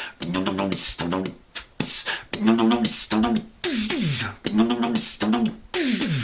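A man beatboxing: hummed low notes broken up by short hissing vocal snare and hi-hat hits in a steady beat, with falling vocal pitch slides about four seconds in and again near the end.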